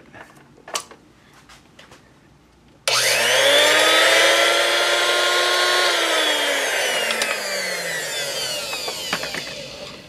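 A Darex 750SP drill bit sharpener's motor is switched on about three seconds in and spins its diamond grinding wheel up to speed with a whine. It runs steadily for about three seconds, then is switched off and winds down with a slowly falling whine. The wheel is running true, with no wobble, after being flipped over and reseated with its brass shim. A few light handling clicks come before it starts.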